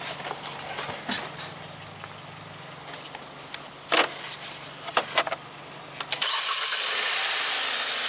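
Hyundai Elantra 2.0-litre multi-port-injected four-cylinder engine being started: a few sharp knocks, then about six seconds in the engine catches and settles into a steady, even idle. It is purring smoothly now that the cylinder 3 misfire has been fixed.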